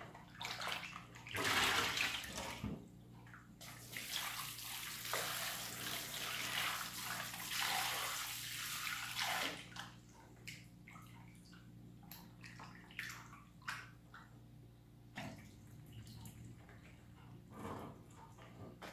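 Kitchen tap running into a plastic bowl of raw chicken pieces, with splashing as they are rinsed by hand. About ten seconds in, the steady running gives way to scattered splashes and knocks, and near the end water is tipped from the bowl into a stainless steel sink.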